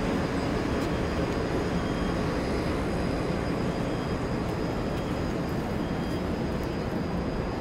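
Steady low rumble of outdoor city ambience, with a faint steady high tone above it.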